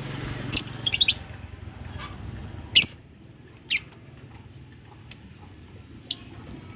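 Lovebirds calling with short, high-pitched chirps: a quick run of calls about half a second in, then four single calls spaced roughly a second apart.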